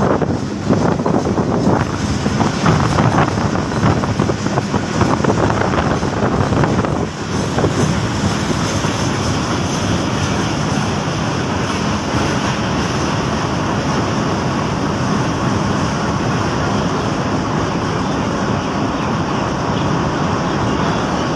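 Commuter train running on the rails: an uneven clatter for the first seven seconds or so, then a steady rushing noise.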